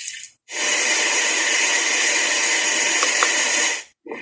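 A built-in sleep sound from the Core Innovations retro alarm clock's speaker: a steady rushing hiss like air or running water, starting about half a second in and cutting off abruptly near the end, as the list of sleep sounds loops.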